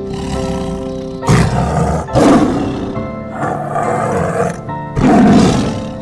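A tiger roaring: three loud roars, about one and a half, two and five seconds in, with a weaker one between the second and third, over gentle piano music.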